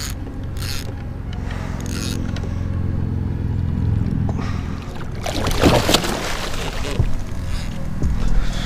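Water splashing hard for about a second, about five seconds in, over a low steady rumble.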